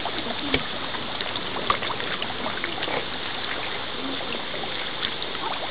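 A dense crowd of carp gulping and thrashing at the water surface to be fed: steady wet splashing and slurping, dotted with many small sharp smacks of mouths at the surface.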